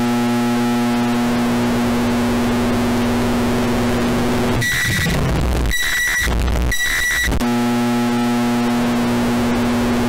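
Microwave oven running hum, boosted until harsh and distorted, broken about halfway through by three loud high beeps before the hum starts again.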